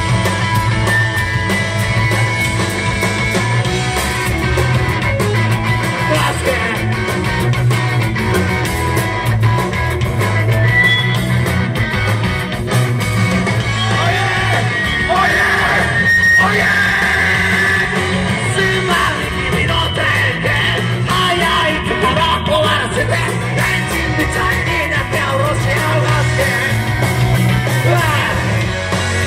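Loud live rock band playing: electric guitar, bass and drums with cymbals, and a vocalist singing and yelling.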